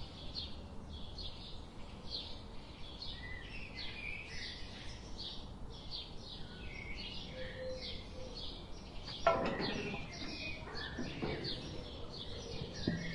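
Small birds chirping, many quick high chirps repeating throughout over a faint background hiss. About nine seconds in, a brief louder, lower-pitched call stands out.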